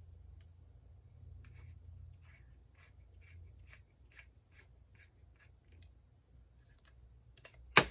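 Light clicks, about three a second, as the fluid adjustment knob of a Fuji Spray GXPC spray gun is turned on by hand. Near the end a small part drops onto the bench with one sharp, loud clatter.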